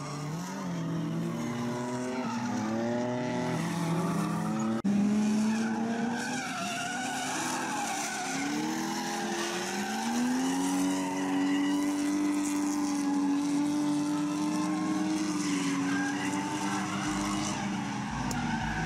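Drift cars sliding through corners, engines revving hard with the pitch rising and falling and tyres squealing. About five seconds in there is an abrupt click, and later one engine holds a steady high note for several seconds.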